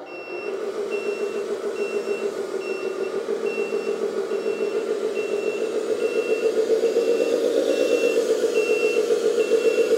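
An RC truck's onboard sound module playing a diesel engine running with a reversing beeper while the model backs up: short high beeps about every 0.7 seconds over a steady engine hum that swells a little about seven seconds in.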